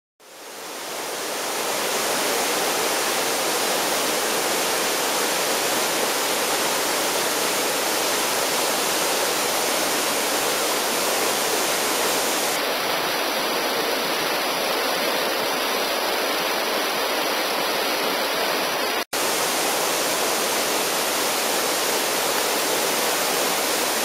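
Waterfall pouring into a plunge pool: a steady rushing of falling water that fades in over the first couple of seconds, with a momentary dropout about nineteen seconds in.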